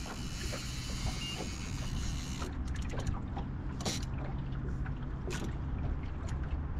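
Steady low hum and rumble from a metal jon boat on the water, with scattered short knocks and clicks from the hull and tackle. A hiss fills the first two and a half seconds.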